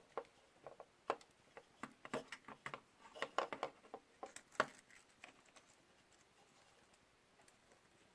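Faint scattered clicks and taps of small parts being handled during repair of a DJI Phantom 3 Pro camera gimbal's ribbon cable. They come irregularly, a few a second, and die away about five seconds in.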